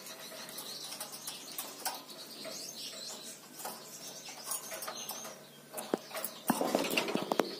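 Pet lorikeet giving short chirps and squawks while it clambers over the wire cage bars, its beak and claws clicking on the metal; a louder flurry of calls and clicks near the end.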